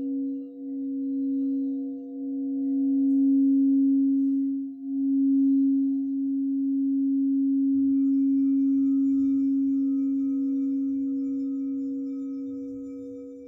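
Singing bowl sounding a sustained low tone with a fainter overtone, swelling and dipping a few times in the first five seconds, then holding steady and slowly fading away near the end.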